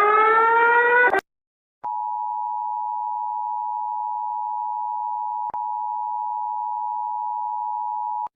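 Mock Emergency Alert System alarm: a loud rising electronic sweep that cuts off about a second in, then after a brief gap a steady electronic attention tone held for about six seconds, with a single click partway through.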